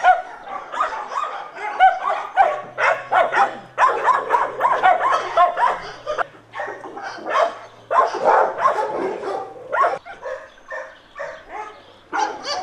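Several dogs barking, overlapping almost without pause, with a quieter lull about ten seconds in.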